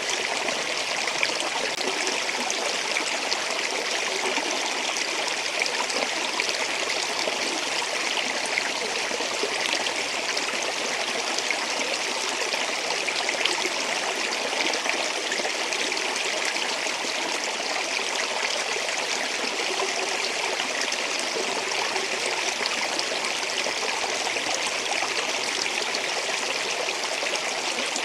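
Flowing water of a stream or small waterfall: a steady, unbroken rushing with fine splashing.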